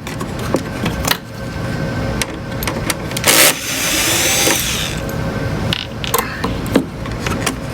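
Screwdriver work on an oscilloscope's circuit board: scattered small clicks and taps of the tool and parts, with a louder rasping burst a little over three seconds in, over a faint steady hum.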